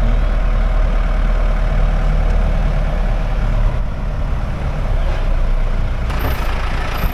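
Engine of an eight-seater safari vehicle running as it drives off, a deep steady rumble.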